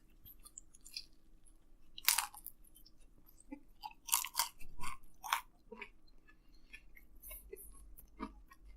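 Close-miked eating of a pizza sandwich: chewing and biting, with sharp crunches of crust, one loud one about two seconds in and a quick cluster of them around the middle.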